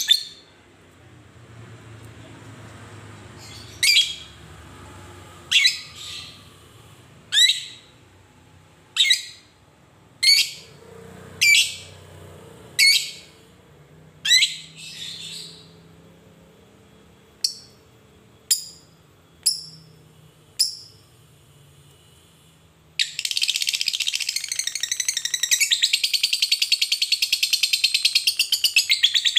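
Fischer's lovebird giving short, sharp single chirps about every second and a half, then, about three-quarters of the way through, breaking into a loud, continuous rapid chattering trill: the long 'ngekek' of a fighter lovebird.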